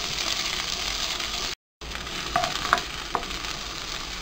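Chopped onion and green chillies sizzling in hot oil in a non-stick kadai as they are sautéed and stirred with a spatula, with a few light spatula taps against the pan. The sound cuts out completely for a moment about a second and a half in.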